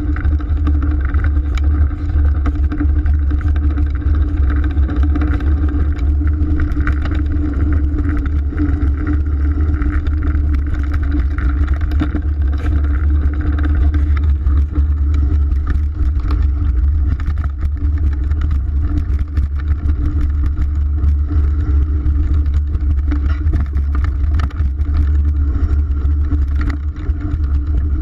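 Mountain bike riding fast down a dirt trail, heard through a chest-mounted GoPro Hero 3: a steady, loud wind buffeting and rumble on the microphone, with frequent small knocks and rattles from the bike over the bumps.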